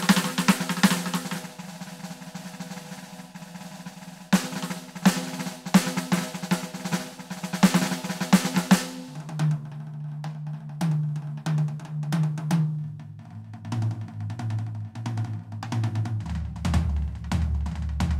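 Roland TD-17KVX electronic drum kit played through its sound module: a busy groove of snare, bass drum and cymbals. About nine seconds in it changes to a sparser pattern with ringing low drum notes that step down in pitch.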